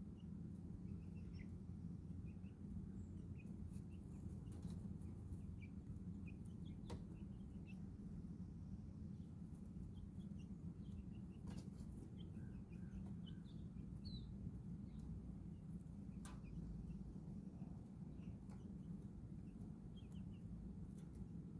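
Faint, short, high chirps from birds, scattered throughout, over a steady low hum. A few sharp ticks come about 7, 12 and 16 seconds in.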